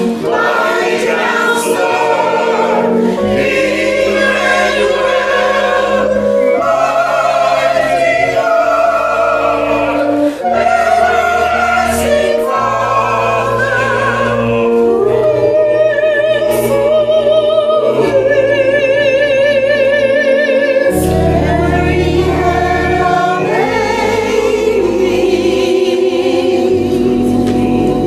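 A church choir sings a slow hymn, holding its notes with vibrato over low, steady bass notes that come in about three seconds in.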